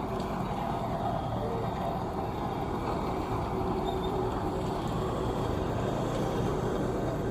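Diesel engine of a tandem road roller running steadily.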